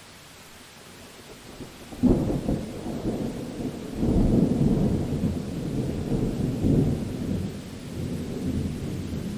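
Thunder in a thunderstorm: a faint steady hiss, then about two seconds in a sudden crack of thunder. It swells again a couple of seconds later and rolls on as a long low rumble.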